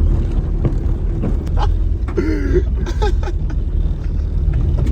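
Small car's engine and tyres heard from inside the cabin while driving, a steady low rumble.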